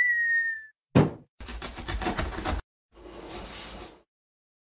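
Cartoon intro sound effects: a short whistle that dips slightly in pitch, a single thud about a second in, then a quick rattle of clicks, and a hiss near the end.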